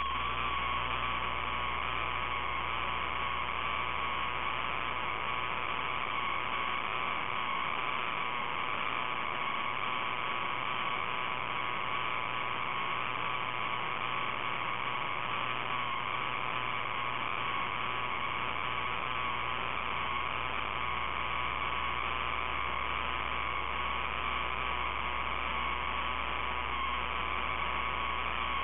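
Steady electrical hum and hiss with a faintly wavering high whine on top, unchanging in level; no separate vehicle passes stand out.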